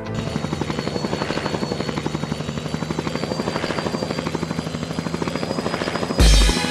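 Helicopter rotor running steadily, a fast, even chop of blade beats. About six seconds in, a loud, low thump lasting under half a second.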